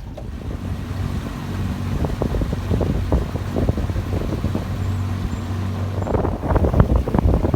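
Boat motor running steadily under way, with wind buffeting the microphone and water rushing past; about six seconds in the engine's steady hum gives way to rougher, choppier wind and water noise.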